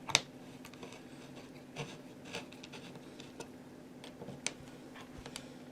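Screws being tightened by hand with a screwdriver: a handful of light, irregular clicks about a second apart.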